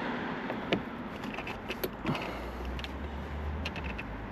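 Guttering being worked into its brackets by hand: scattered light clicks and knocks, with a low rumble in the middle.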